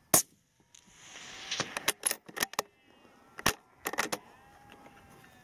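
A single rifle shot from a .243 Mauser M12 just after the start, followed by a run of sharp metallic clicks and rustling as the bolt is worked for another round. Sheep bleat faintly in the background.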